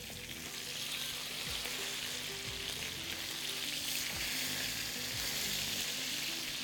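Two whole tilapia frying in hot oil in a pan, giving a steady sizzle.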